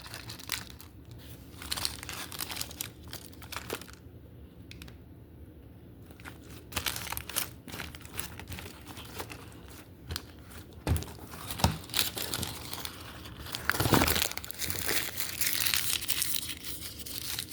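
Hands pressing and squishing wax-coated crunchy slime, its hardened coating crackling in irregular runs of small snaps, with a quieter lull about four seconds in.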